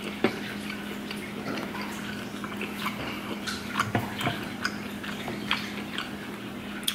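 Small wet clicks and taps scattered through, from fingers handling and pulling at pieces of boiled octopus tentacle on a plate, over a steady low hum.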